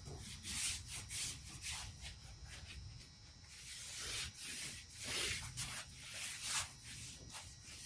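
A paper towel damp with degreaser being wiped over the hatch opening in quick, repeated rubbing strokes, quiet and hissy.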